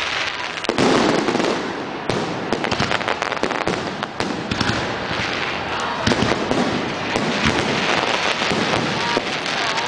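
Fireworks display: aerial shells bursting amid a dense run of rapid crackling pops.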